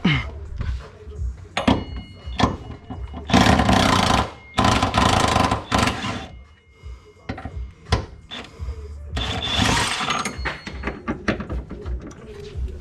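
A power tool runs in three loud bursts of a second or more, the first two back to back a few seconds in and the third near ten seconds. Short knocks of tools on metal fall in between.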